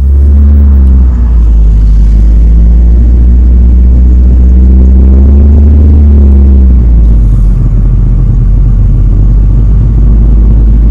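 Car running on the road, heard inside the cabin: a loud, deep engine and road rumble with an engine hum that rises and then falls as the car speeds up and eases off. The deepest part of the rumble drops back about seven seconds in.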